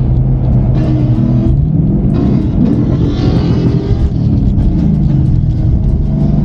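Car engine and exhaust droning steadily, heard from inside the cabin at freeway speed; the note wavers and climbs for a moment about two to three seconds in, with a rush of wind and road noise.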